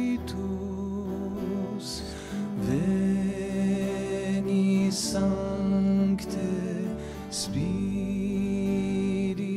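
Slow, gentle devotional music: a hymn sung in long held notes over instrumental accompaniment, the notes changing every two to three seconds.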